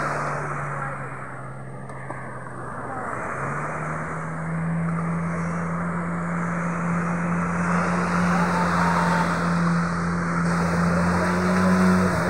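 A small fibreglass fishing boat's motor running steadily as the boat comes in through the surf, growing louder and rising slightly in pitch near the end, over the wash of breaking waves.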